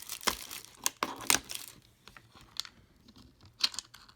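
Plastic packaging wrap crinkling and tearing as it is pulled off by hand, dense for the first second and a half, then a few separate light clicks.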